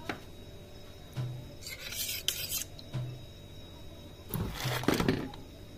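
Metal spoon scraping against a bowl while beating egg yolk with milk, in two rasping bursts: a short one about two seconds in and a louder one near the end.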